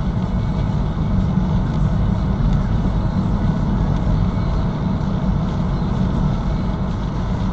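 A car driving along: steady, deep road and engine noise picked up by a dashcam inside the cabin.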